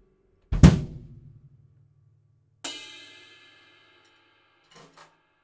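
Closing hits on a Dixon Fuse Maple drum kit with Sabian cymbals: about half a second in, a loud accent of bass drum and cymbal struck together that rings out, then about two seconds later a single cymbal strike left to ring and fade. Two faint clicks near the end.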